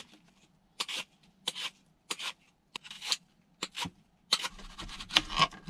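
Hand-held vegetable peeler scraping the skin off an apple in a series of short strokes, roughly one or two a second.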